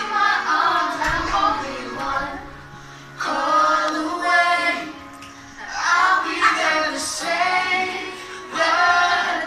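A group of women and children singing a song together, with backing music, in phrases with short breaks between them.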